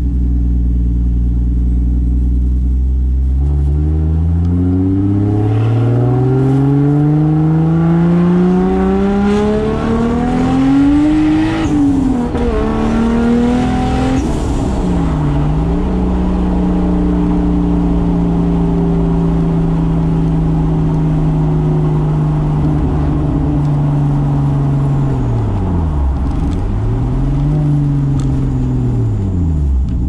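Turbocharged 2JZ straight-six engine of a 1995 Toyota Soarer under way. Its note climbs steadily for several seconds as the car accelerates, drops sharply twice as it shifts up, then holds a steady note at cruise, dipping and recovering twice near the end.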